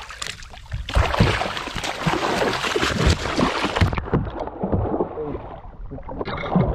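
A hooked tope shark thrashing at the surface, splashing water hard for about three seconds, then lighter sloshing and slapping of water.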